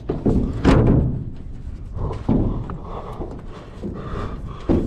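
Thumps and scuffs of a person climbing on the end of a freight train car, with clothing rubbing on a body-worn camera. There are a handful of dull knocks, one about a second in and another near the end.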